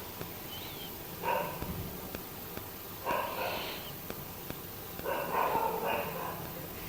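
A dog barking in the background, in three short bursts spread across a few seconds.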